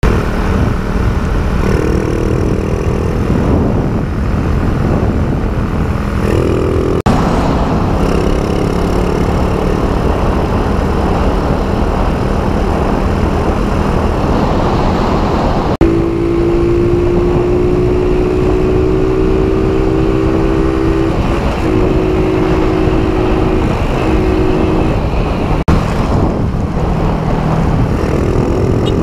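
Motorcycle engine running steadily at cruising speed under heavy wind noise on the microphone, heard from the rider's seat. The engine note changes abruptly three times, after brief drops, where separate stretches of the ride are joined.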